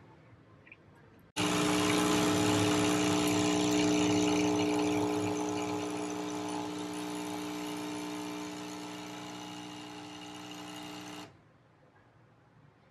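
Nespresso capsule machine's pump buzzing steadily while brewing an espresso shot. It starts suddenly about a second in, grows gradually quieter as it runs, and cuts off abruptly near the end.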